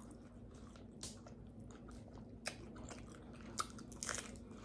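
Faint close-up chewing of tacos, with a few soft crunches and wet mouth smacks spaced about a second apart.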